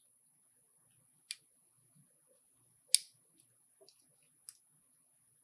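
Small plastic clips on a Timex Ironman digital watch module snapping into place as it is pressed together: three sharp clicks about a second and a half apart, the middle one loudest, with a few faint ticks between.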